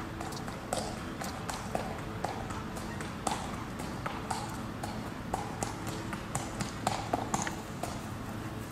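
A horse's hooves clopping on a paved path at a walk: a run of sharp, uneven hoof strikes, about two a second.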